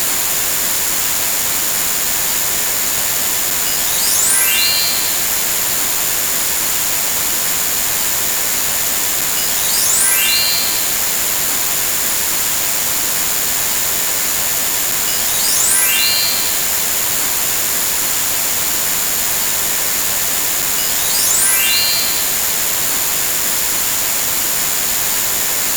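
Loud, steady static hiss with a constant high tone under it. Four times, about every six seconds, a short rising whistle-like sweep cuts through, each lasting under a second.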